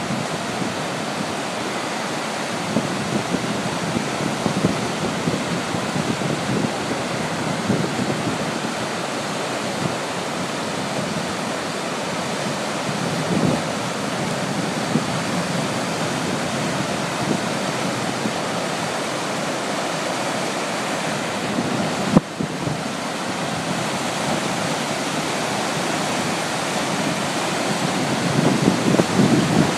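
Turkey River whitewater rushing steadily through rock arch rapids, running high and fast after heavy rain. A single sharp click cuts in about two-thirds of the way through.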